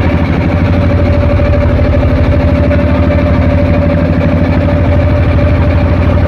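A boat's engine running steadily underway, heard from on board: a constant drone with a fast, even throb.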